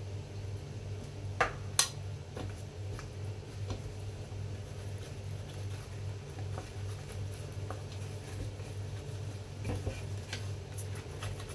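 Banana leaves being handled and folded around grated cassava for suman, with scattered light clicks and a few knocks, the loudest two sharp knocks about a second and a half in, over a steady low hum.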